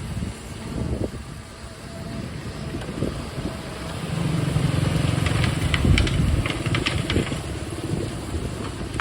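Dump truck's diesel engine running, growing louder about four seconds in, with a run of clattering knocks in the middle.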